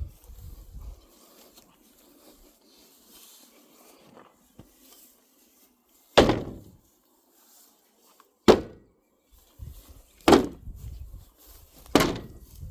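A dog barking: four single loud barks about two seconds apart, after some quiet rustling.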